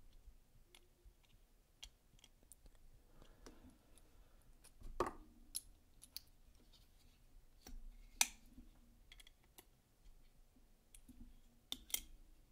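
Faint, scattered small clicks and metal taps from tightening the body screws of a titanium folding knife with a precision screwdriver and handling the knife, with a few sharper clicks about five, eight and twelve seconds in.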